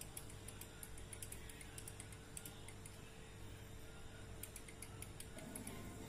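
Faint, irregular small clicks, several a second, from a refrigerator defrost timer's knob being turned by hand toward the defrost position. Under them is a faint steady hum from the running compressor, which cuts out about five seconds in as the timer switches into defrost.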